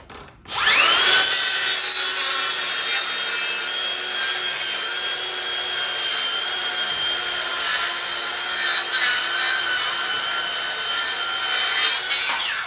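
Makita DHS660 cordless circular saw with a 165 mm blade spinning up with a rising whine about half a second in, then cutting steadily through wood, and winding down near the end.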